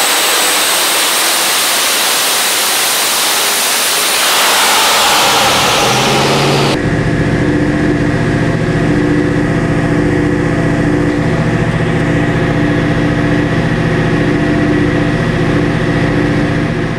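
A loud rushing hiss for the first several seconds, cutting off suddenly to the sand rail's twin-turbo LS V8 engine idling steadily.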